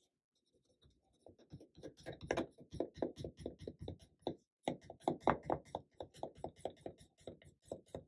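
Yellow wax crayon rubbed back and forth on paper in quick strokes, about five a second, starting about a second in with a short break in the middle.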